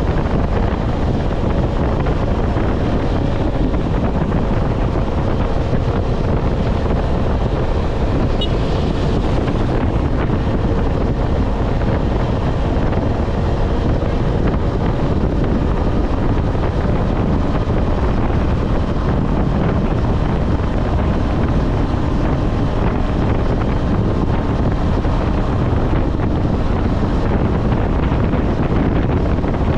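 Heavy wind noise on the microphone from riding at highway speed on a KTM 250 Adventure, with the single-cylinder engine running at a steady speed underneath, a faint even tone that holds without revving.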